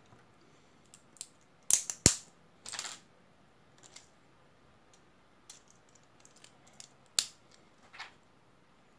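Plastic LEGO bricks clicking and clattering as small pieces are picked up and pressed together by hand. There are scattered sharp clicks, the loudest about two seconds in, a short rattle just before three seconds, and two more clicks near the end.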